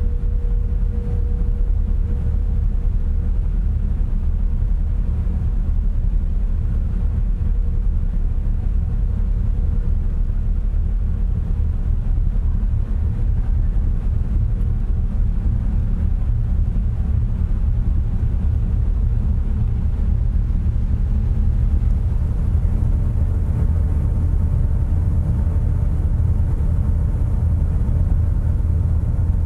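Steady low rumble of a car ferry's engines and propeller wash, heard from the stern deck as the ship gets under way. A faint steady hum fades out in the first ten seconds, and a higher hum comes in about twenty seconds in.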